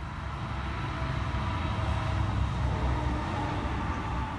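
Low rumble of a motor vehicle going by, swelling for a couple of seconds and then easing off.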